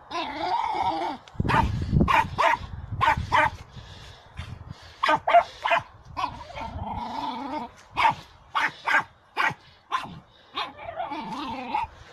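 Small dog barking in short sharp yaps that come in quick clusters, with longer drawn-out whining cries at the start and again near the middle.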